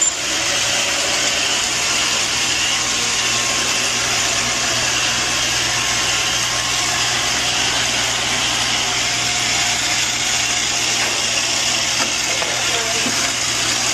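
Steady whirring noise of a small electric motor appliance, with a low hum beneath it, cutting in and cutting off abruptly.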